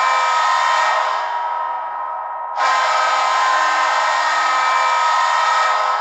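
Hockey arena goal horn sounding in long, chord-like blasts. One blast fades out over the first two seconds, a fresh blast cuts in suddenly about two and a half seconds in, and it fades again near the end. A steady crowd din runs underneath.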